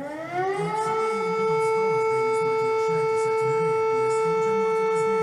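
Lithuanian civil-defence warning siren winding up in pitch over about the first second, then holding one steady, loud tone. A fainter low wavering drone runs beneath it.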